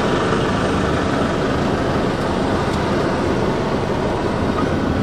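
Steady engine and tyre noise of a car moving slowly, heard from inside the cabin.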